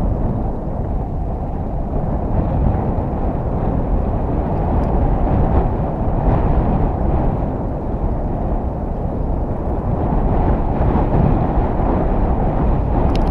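Steady low wind rumble buffeting the microphone of a camera moving at riding speed along a paved trail, mixed with tyre noise on asphalt.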